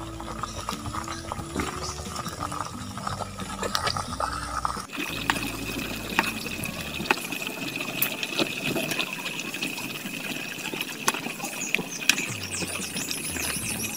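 Whole chicken deep-frying in a pan of hot oil, the oil bubbling and sizzling. About five seconds in the sound changes abruptly to a wood fire crackling, with sharp pops over a steady high tone.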